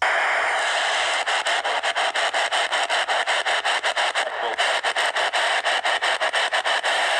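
Loud radio static: a steady hiss that cuts in suddenly. From about a second in, a fast regular flutter of about six dips a second runs through it.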